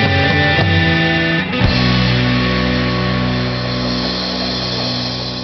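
Rock song ending on guitar and drums: the band plays on for about a second and a half, then hits a final chord that rings out and slowly fades.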